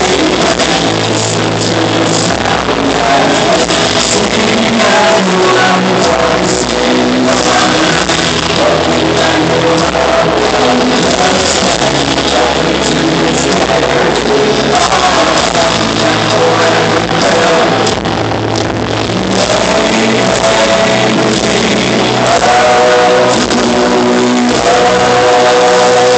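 Live band music with singing, amplified and heard from the audience in an arena.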